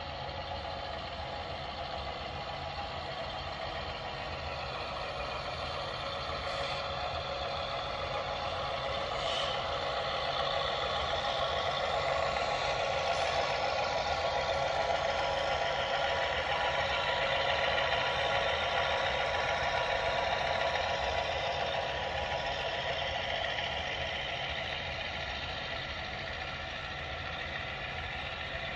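Sound-decoder diesel engine sound from O scale Atlas GP7 model locomotives: an EMD diesel prime mover running steadily through the locomotives' speakers. It grows louder as the engines pass close by about halfway through, then fades a little as the coal hoppers follow.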